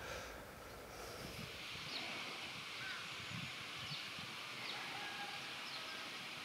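Quiet outdoor ambience: a faint steady hiss with several short, high bird chirps scattered through it.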